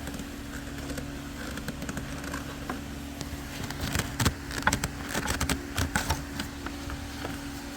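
Plastic air-intake housing parts being pressed into place on a Mercedes-AMG engine, with irregular clicks and short creaks as the rubber seals rub against the plastic, over a steady background hum. The creaking is typical of rubber resisting the plastic where the seals are fitted.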